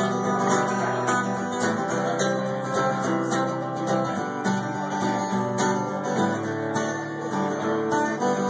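Acoustic guitar strummed in a steady rhythm: an instrumental break between sung verses.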